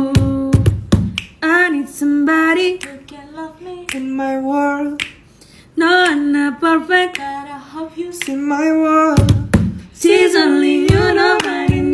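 A voice singing a cappella, with finger snaps and hand claps keeping the beat; it breaks off briefly about five seconds in.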